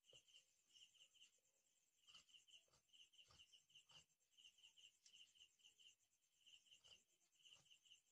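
Near silence: a cricket chirping faintly in short pulsed runs, with faint snips of tailor's scissors cutting through fabric now and then.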